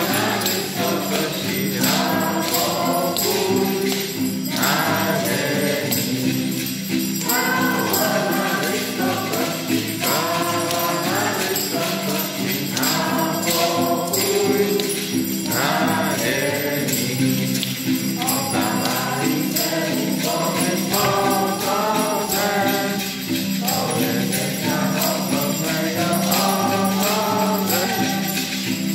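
A group of carolers singing a Polish Christmas carol (kolęda) together, accompanied by a strummed acoustic guitar, phrase after phrase with short breaths between lines.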